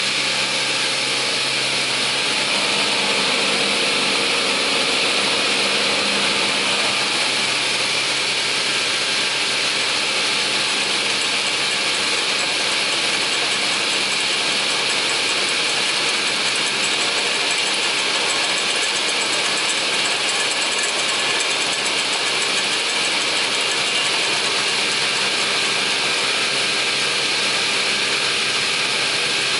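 Raimann KR 310E chain-feed multi-rip saw running steadily: the spinning saw blade and its motor give a continuous high whirring hiss over a low hum, together with the rattle of the moving feed track.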